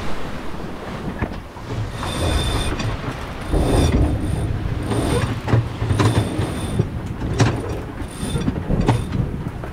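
Creaking, squealing and knocking of a 1974 Dufour 35 sailboat's hull and fittings as it works in heavy seas. Under it runs a steady rush of water and wind. Short squeals recur every couple of seconds among irregular knocks.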